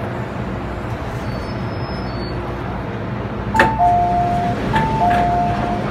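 Steady rumble inside a subway train car. About halfway through, the train's two-note chime (a higher note dropping to a lower one) sounds twice in a row.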